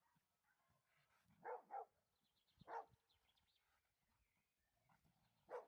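Large dogs barking: a quick double bark about a second and a half in, a single bark a second later, and another right at the end, with fainter dog noises between.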